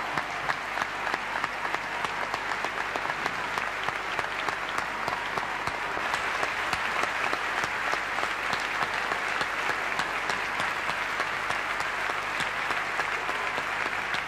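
Large audience applauding, dense steady clapping that keeps up without a break.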